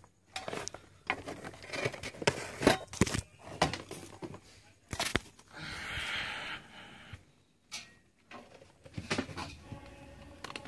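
Things being handled on a workbench and near the camera: a string of irregular clicks and knocks, with about a second of rustling midway.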